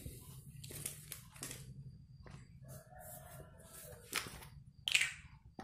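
A rooster crowing once, a drawn-out call lasting about a second, around three seconds in, among scattered short clicks and rustles. Two louder sharp sounds come near the end, the second a higher-pitched falling cry.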